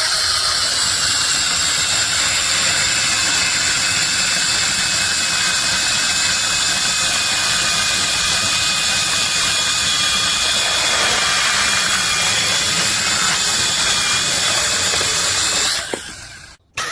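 Battery-powered mini chainsaw running steadily at full speed, its motor and chain making a loud even whir with a faint whine that sinks slightly in pitch. It cuts off abruptly near the end.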